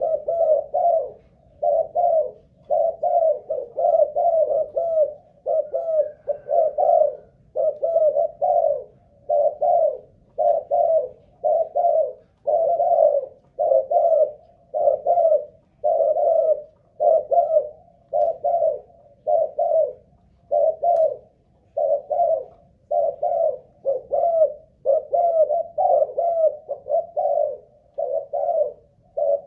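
Spotted dove cooing: a steady, unbroken run of its short repeated coo phrases, about one every second and a half. This long sustained bout is the staying power a decoy dove is tested for.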